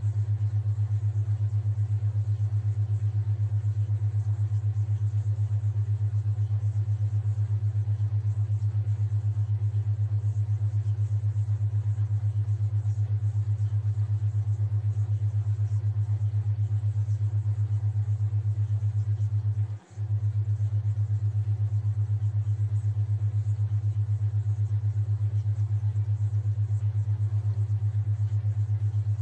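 A theta-wave tone: a loud, steady low hum that pulses several times a second. It cuts out for a moment about twenty seconds in.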